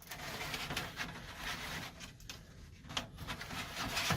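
Rustling, scraping and a few clicks of an HVAC return-air filter being handled and slid out of its slot, with a sharper knock about three seconds in and another near the end.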